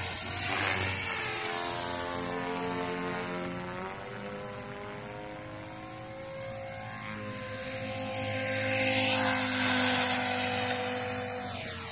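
Electric Blade 450X RC helicopter in flight, its rotor and motor whine rising and falling in pitch as it manoeuvres. It fades as it flies farther out, then gets loud again near the end as it comes in close.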